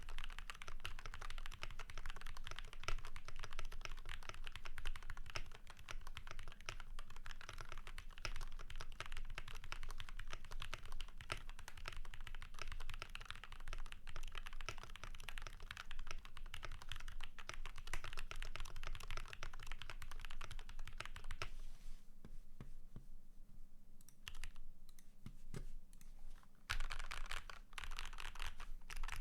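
Continuous rapid typing on a Keychron K6 mechanical keyboard with lubed Gateron Brown switches, a steel plate, tape mod and polyfill, and PBT Cherry-profile keycaps. Near the end the keystrokes thin out to a few scattered presses for several seconds, then steady typing resumes.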